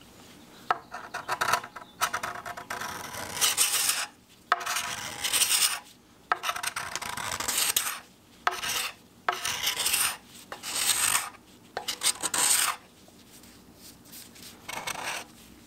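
Hand scraper drawn along a wooden canoe paddle, stripping off old varnish: rasping strokes of about a second each with short pauses, and a longer pause near the end.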